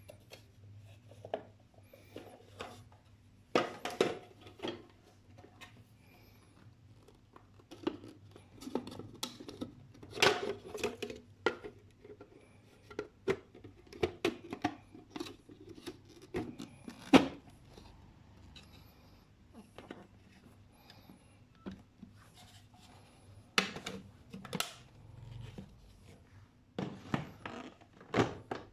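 Plastic parts of a vacuum cleaner being handled: irregular clicks, knocks and rubbing, with a few louder knocks scattered through. A faint steady low hum runs underneath.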